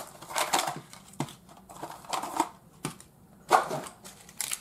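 Packaging of a Sportsclix figure box being torn open and crinkled by hand, in several short rustling bursts, the loudest about three and a half seconds in.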